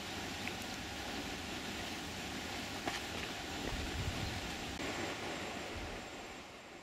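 Steady outdoor rushing noise with a few faint clicks and low thumps; it drops off sharply about six seconds in.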